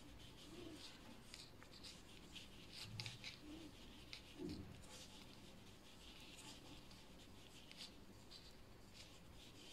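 Faint, irregular clicking and rubbing of metal knitting needles and yarn as purl stitches are worked.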